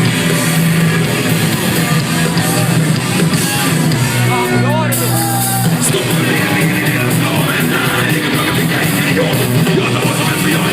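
Loud rock music with guitar, with a few sliding notes about halfway through.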